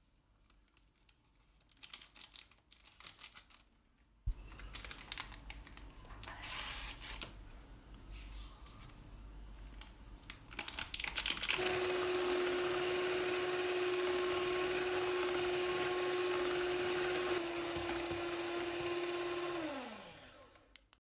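Knocks and handling noises of kitchen things, then an electric blender runs at a steady pitch for about eight seconds, drops slightly in speed, and winds down as it is switched off.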